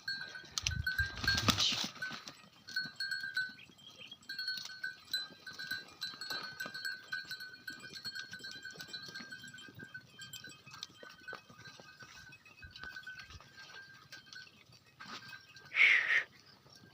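A single short bleat from the farm's goats and sheep near the end, over a thin high tone that keeps coming and going. There is a loud rustle about a second in.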